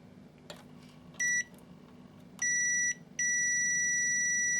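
Multimeter continuity beeper sounding three times as the probes make and break contact with ground: a short beep, a half-second beep, then a long one of about a second and a half. The broken beeping shows an intermittent ground connection, only 'kind of a ground'.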